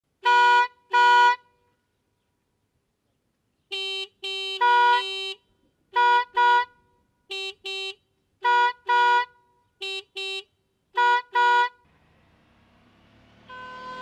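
Stebel Nautilus air horn on a Suzuki V-Strom DL1000 sounding its two-tone blast in short bursts, mostly in pairs, with a pause of a few seconds after the first pair. Near the end the motorcycle's engine grows louder as it comes closer, and the horn sounds again.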